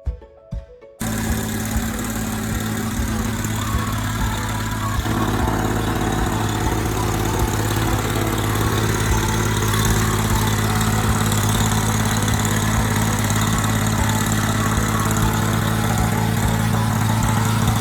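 Toro snowblower engine running steadily, cutting in suddenly about a second in.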